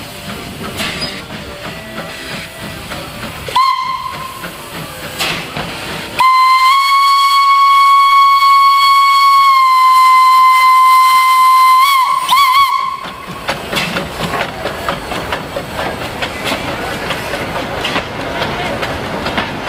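Small steam tank locomotive sounding its steam whistle: a short toot about three and a half seconds in, then a long steady blast of about six seconds that ends in a couple of quick warbling toots. Around it, steam hisses and the train rolls along the track as it moves off.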